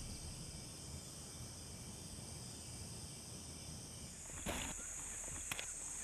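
Steady high-pitched insect chorus, with two brief sharp noises in the last couple of seconds.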